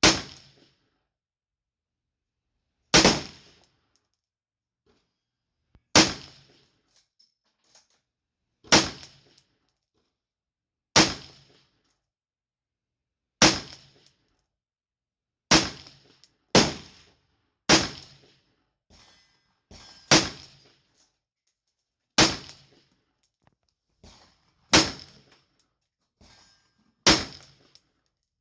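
A 20-inch Palmetto State AR-15 firing 5.56 mm SS109 rounds in slow semi-automatic fire from an Amend2 20-round magazine, thirteen shots, mostly two to three seconds apart with a quicker pair about halfway through. The rifle cycles and feeds each round without a stoppage.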